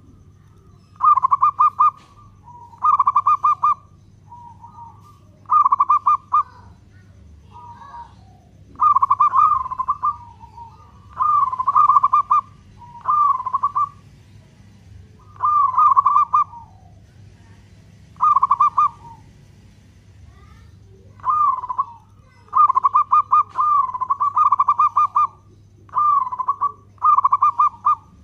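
Zebra dove (perkutut) singing its song of rapid, stuttering coos: about a dozen loud phrases, each roughly a second long, with short pauses between.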